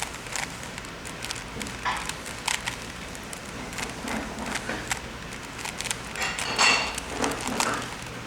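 Plastic Rubik's Cube being twisted by hand: a run of irregular clicking and clacking as the layers are turned, with a louder burst of turns a little past the middle.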